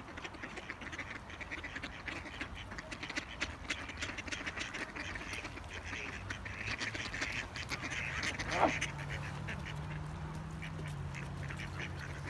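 A flock of mallard ducks quacking and calling in quick, overlapping bursts. About two-thirds of the way through comes one sharp, louder sweeping sound, and a low steady hum joins in after it.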